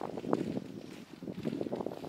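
Wind buffeting the microphone: an uneven rushing noise that rises and falls in gusts.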